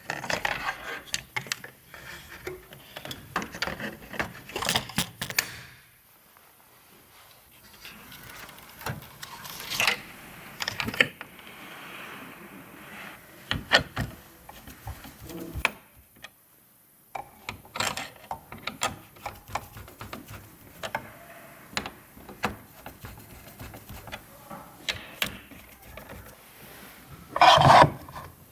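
Irregular clicks, taps and light rattles of computer parts being handled and fitted by hand during a PC build, with a louder clatter near the end.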